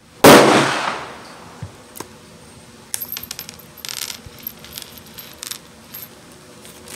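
A single loud, sharp gunshot just after the start, ringing out under the range roof for about a second. From about three seconds in, a run of light metallic clinks, typical of spent .22 brass casings being handled or ejected from a revolver cylinder.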